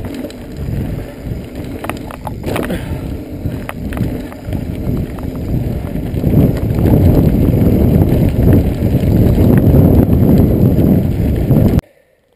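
Mountain bike riding down a dirt and gravel singletrack: tyres rumbling over the ground, wind buffeting the camera microphone, and the bike rattling with scattered knocks. It gets louder about halfway in, then cuts off abruptly just before the end.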